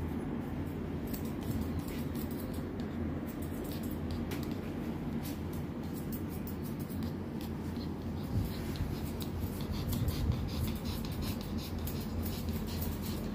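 Grooming scissors snipping a Pomeranian's fur in short, irregular clicks over a steady low hum.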